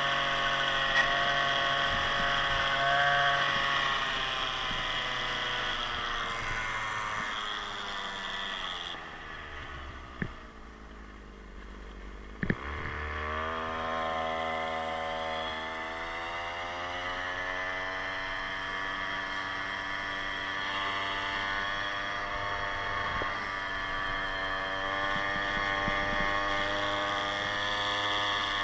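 Small 52cc big-bore two-stroke scooter engine under way. Its pitch falls as it slows down, and it runs quieter at low revs for a few seconds, with two sharp knocks. Then it revs back up and holds a steady cruising note.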